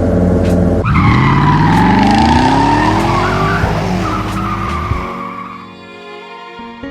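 Race-car sound effects: an engine idling with a rough rumble, then about a second in a hard launch, the engine pitch climbing steadily while tires screech. It all fades out from about five seconds in as soft music comes up.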